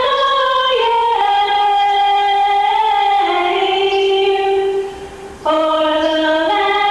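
The national anthem being performed: slow melody of long held notes, each a second or two before stepping to the next, with a short break about five seconds in.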